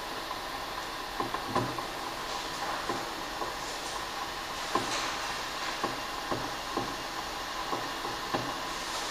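Quiet classroom room tone: a steady hiss with scattered light taps and knocks at irregular intervals.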